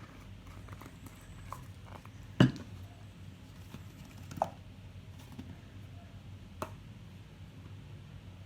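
Tableware being handled on a table while dipping sauces are dished out: one sharp knock about two and a half seconds in, then two lighter clicks, over a low steady hum.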